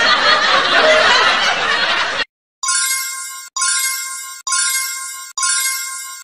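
A noisy, laughter-like sound effect cuts off about two seconds in. Then an electronic chime rings four times, just under a second apart, each ring bright and fading.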